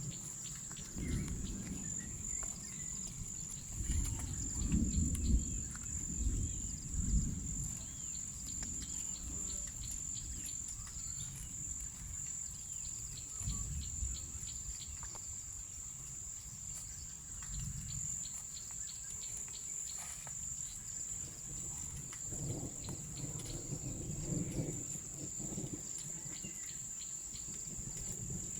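A steady, high-pitched insect drone, like crickets, with no break. Under it come irregular low rumbles and thumps that swell and fade every few seconds.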